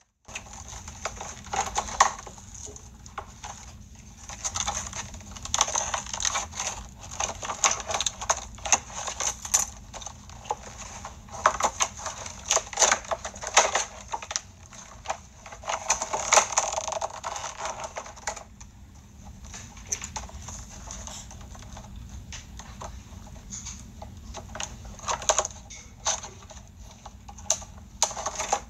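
Plastic toy packaging crinkling and tearing as it is pulled open by hand: a dense, irregular run of crackles and rustles, thinning out for a few seconds past the middle.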